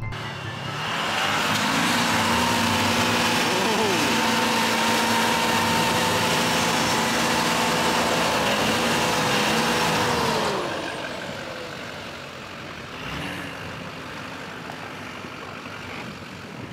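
Hummer H1 engine running hard at a steady pitch as the truck pushes through deep snow, then easing off about ten seconds in and staying quieter.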